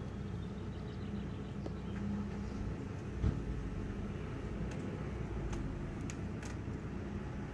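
A vehicle engine running steadily as a low hum, with a single thump about three seconds in and a few faint high ticks near the end.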